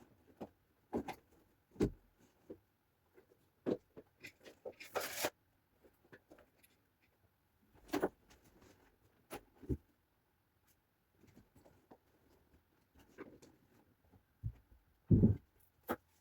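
Scattered knocks and clatters of things being handled, with a short rustle about five seconds in and a heavier knock near the end.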